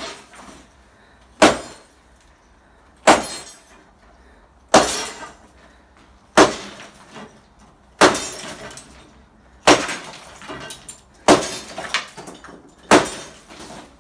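Sledgehammer blows breaking concrete, eight heavy strikes about one every one and a half seconds, each followed by a brief clatter of broken pieces.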